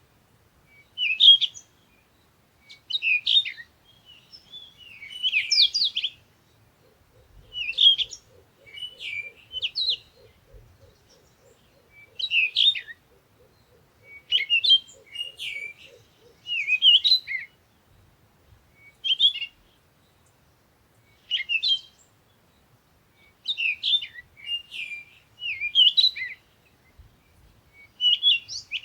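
Birds chirping in short bursts of high twittering notes, a burst every second or two with brief silent gaps between.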